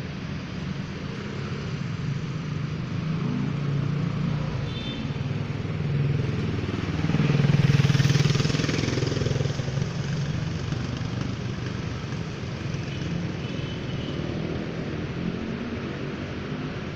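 Road traffic with a motorcycle engine passing, growing louder to a peak about eight seconds in and then fading.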